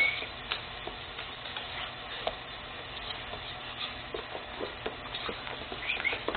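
Two German shepherds, a young male and a puppy, playing rough on a wooden floor: scattered light clicks and scuffs of claws and the chewed toy, with a short high squeal near the end.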